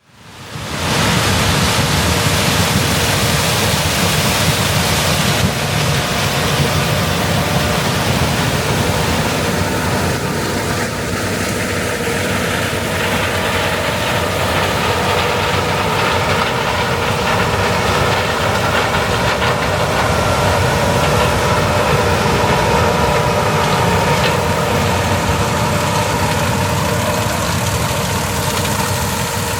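Heavy farm machinery running steadily, a continuous engine sound with a steady whine. It fades in over the first second.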